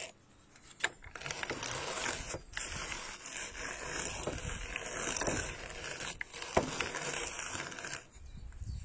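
Hand-cranked drum carder turning, its carding-cloth teeth scratching and brushing through dog undercoat: a steady scratchy rustle starting about a second in and easing off near the end, with a couple of sharp clicks.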